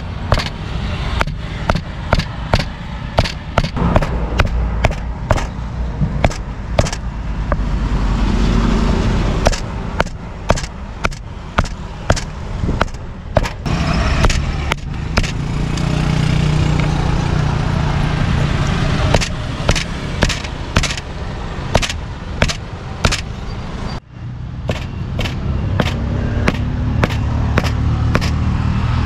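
A cleaver chopping grilled meat on a chopping block: a long run of sharp knocks, about two or three a second with a few short pauses, over a steady low rumble of engines.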